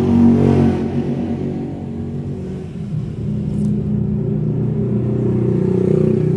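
A motor engine running steadily nearby, a loud low hum that swells slightly and wavers in pitch.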